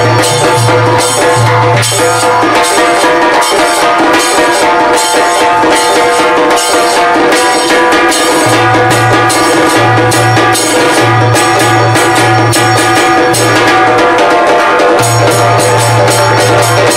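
Background music: a steady beat of drums and hand percussion over a pulsing bass line and sustained melody notes.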